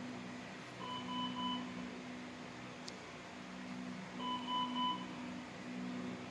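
Hospital monitor alarm beeping in groups of three short beeps, twice, about three seconds apart, over a steady low machine hum.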